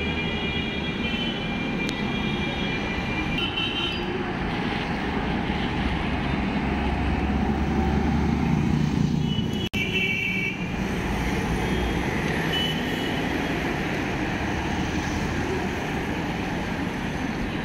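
Busy city street traffic: a steady din of passing buses, cars and motorbikes, with short vehicle horn toots near the start and again about ten seconds in. The sound drops out for an instant just before the horns in the middle.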